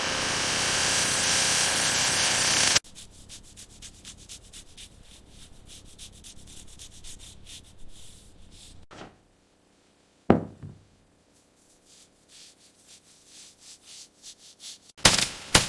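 Loud, steady abrasive rubbing on metal that stops abruptly about three seconds in, followed by faint rapid scraping. Then comes a short silence, a single sharp knock, and a quick run of loud sharp knocks near the end.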